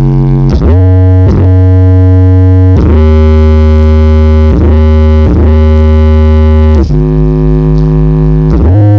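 SJP Audio parade sound system blasting synthesizer music very loudly: held chords over a deep bass, with the pitch swooping down and back up at each of several chord changes.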